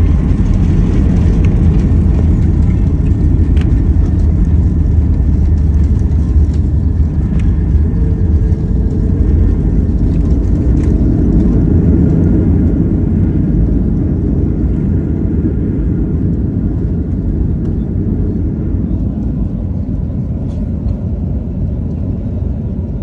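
Jet airliner heard from inside the cabin while rolling fast along the runway: a loud, steady deep rumble of engines and wheels that eases off gradually over the last ten seconds.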